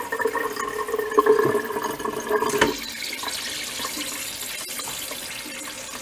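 Water running steadily out of hoses into a stainless steel kitchen sink and its drain, splashing and trickling. A steady tone rides along for the first two and a half seconds, then stops abruptly, leaving only the running water.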